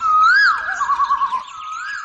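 Clear whistled tones: a swooping glide up and back down, then a quick warbling trill, over a steady held tone.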